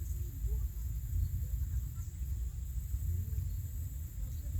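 Outdoor pondside ambience: a steady low rumble with a faint, steady high-pitched insect drone, such as crickets or cicadas, running over it.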